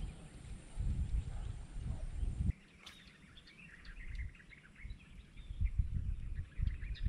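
Low wind rumble on the microphone that cuts off suddenly about two and a half seconds in, leaving small birds chirping, with more gusts of wind on the microphone near the end.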